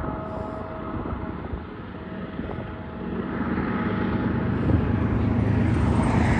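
Diesel freight locomotives approaching, the low drone of their engines growing steadily louder from about halfway through.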